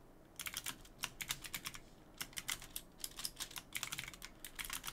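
Typing on a computer keyboard: a quick, irregular run of keystroke clicks that starts about half a second in and goes on with short pauses.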